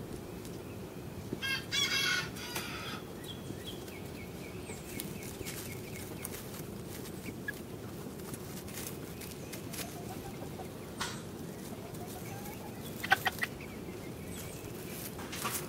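Serama bantam chickens clucking, with one loud, high call lasting about a second and a half about two seconds in, then a few sharp clicks later on, over a steady low background noise.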